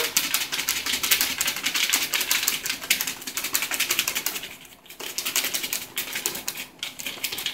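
Folded paper slips rattling inside a lidded plastic food container shaken hard, a fast run of clicks that stops briefly about two-thirds of the way through, then starts again.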